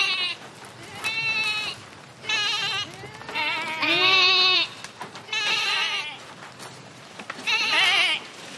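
Sheep bleating repeatedly: about six separate quavering bleats, each roughly half a second long, with short pauses between them.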